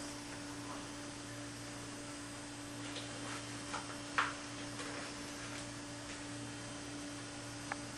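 Steady electrical hum, with a few faint clicks and rustles from handling; the clearest comes about four seconds in.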